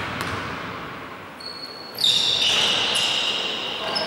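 Sneakers squeaking on a hardwood basketball court as players break into motion: a loud cluster of high squeaks starts about halfway through and goes on for about two seconds.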